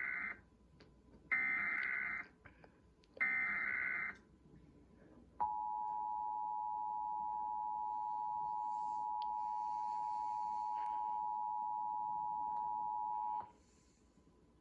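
Emergency Alert System test broadcast: three short bursts of SAME header data tones (the first already under way), then after a pause the EAS attention signal. This is a steady two-tone alert at 853 and 960 Hz, lasting about eight seconds and cutting off sharply.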